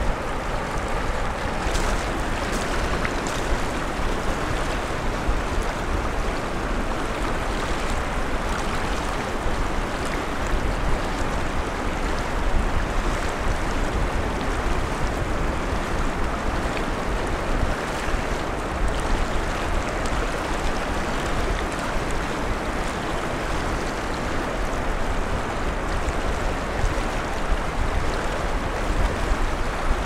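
Steady outdoor rush of wind and water: wind buffeting the microphone with a low rumble, over a constant hiss of moving water.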